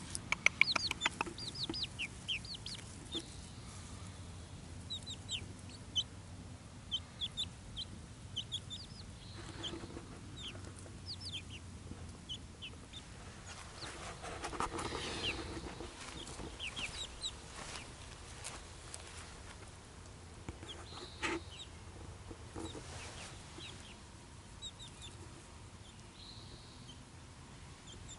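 Six-week-old chicks peeping as they forage: short, high, falling notes, a quick run of them at the start and scattered ones after.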